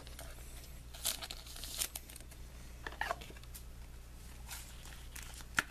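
Thin clear plastic card sleeve crinkling and rustling as it is handled: a few short crinkles about one, two and three seconds in, and a sharper click near the end, over a faint low hum.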